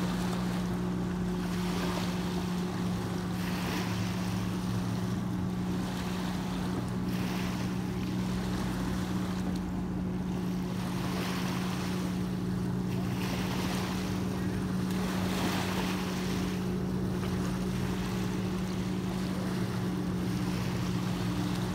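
Small waves lapping and breaking on a sandy lakeshore, washing in every second or two, over a steady low engine drone.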